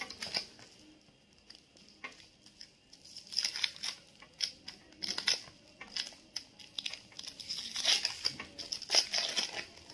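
Hands working at a stethoscope chestpiece: small clicks and rustles, sparse and faint at first and busier from about three seconds in.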